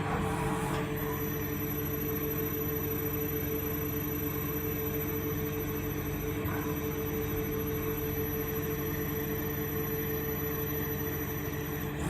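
Machining center running through a roll-tapping cycle: a steady mechanical hum made of several held tones, with a faint brief rustle about six and a half seconds in.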